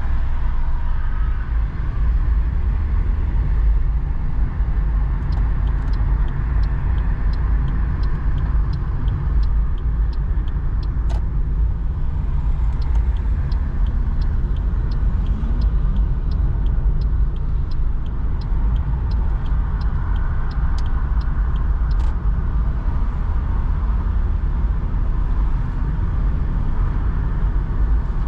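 Steady low rumble of a car's engine and tyres heard inside the cabin. From about five seconds in to about twenty seconds, a regular ticking of about two a second, typical of the direction indicator signalling a turn at a roundabout.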